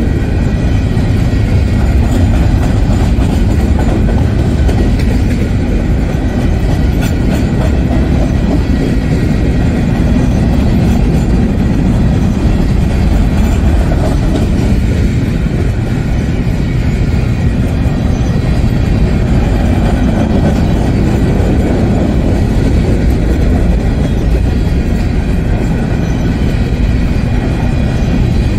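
Union Pacific freight train's covered hopper cars rolling past close by: a steady, loud rumble of steel wheels on the rails.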